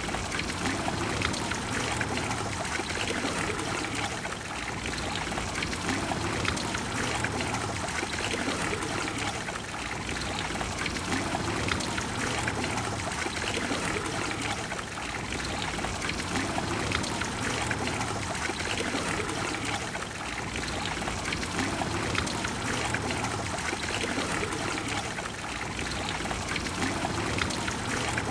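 Water flowing and splashing in the Trevi Fountain, a steady, unbroken rush.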